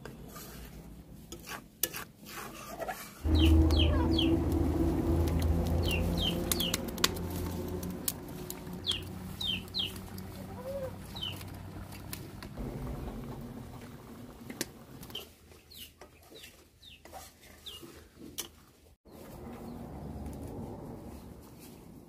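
Chicks peeping in short, high, downward chirps, two or three at a time, again and again. Beneath them is a loud low hum that starts suddenly about three seconds in and slowly fades.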